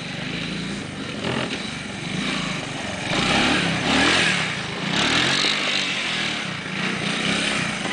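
Small three-wheeled ATV engine running and revving up and down as it is ridden around, its pitch rising and falling, loudest about three to five seconds in.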